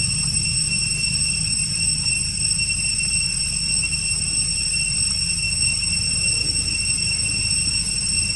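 Steady outdoor background: a constant high-pitched whine over a low, even rumble, with nothing sudden standing out.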